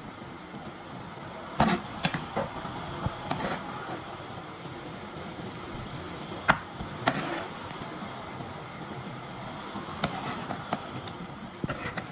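Metal spoon clinking and scraping against a ceramic plate as soup is spooned over meat: a scattered handful of short clicks over a steady background hiss.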